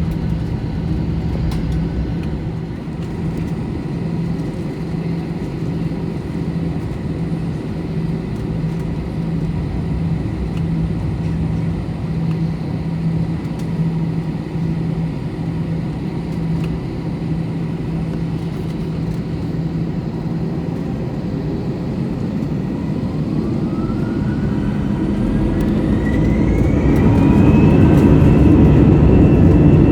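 Airbus A321 cabin noise with a steady low hum as the jet taxis. About three-quarters in, its CFM56 engines spool up with a whine that rises in pitch and then holds, and the noise grows louder: power being set for the takeoff roll.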